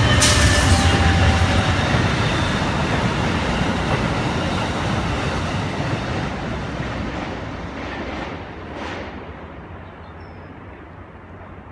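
Amtrak train passing close by, wheels rumbling on the rails, then fading away steadily as it moves off into the distance.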